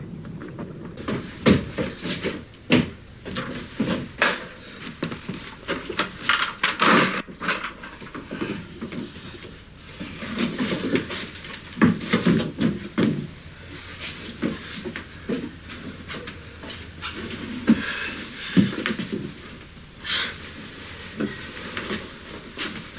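A person panting, with irregular knocks and bumps throughout.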